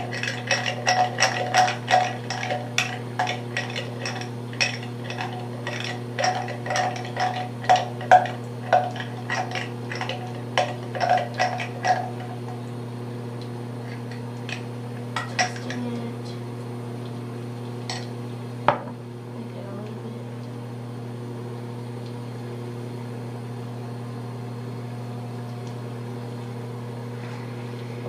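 A utensil stirring a glue slime mixture in a container, clicking and tapping quickly against its sides for about twelve seconds, then a few scattered taps. A steady low hum runs underneath throughout.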